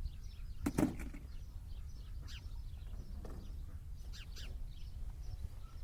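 Birds chirping in the background, short high calls repeating every second or so, over a steady low rumble, with a single sharp knock a little under a second in.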